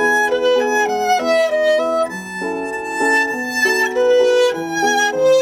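Violin, an upcycled instrument with plates of recycled Lego ABS plastic, playing a melody over lower accompanying notes.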